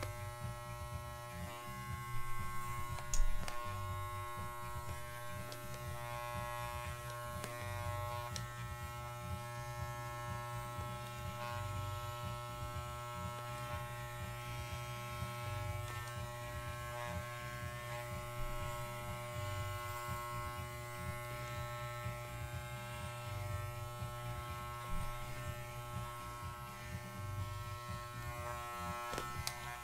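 Corded electric dog clippers running with a steady hum while trimming a miniature schnauzer's coat. A few sharp knocks about three seconds in.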